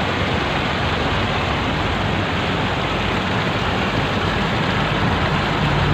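Steady rushing of floodwater, an even hiss that holds at one level throughout.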